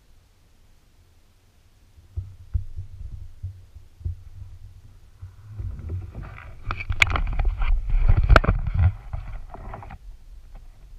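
Handling noise close to the microphone on the kayak. A few sharp knocks with low thumps start about two seconds in. A louder stretch of rubbing, scraping and clicking follows for several seconds as the bow-mounted camera is tilted upward, and it stops shortly before the end.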